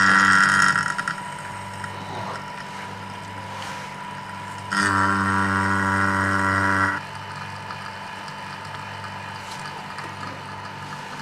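Electric vacuum pump running, evacuating a refrigerator's sealed system through the charging hose before it is filled with R134a. It gives a steady motor hum that is louder for about the first second and again for about two seconds in the middle.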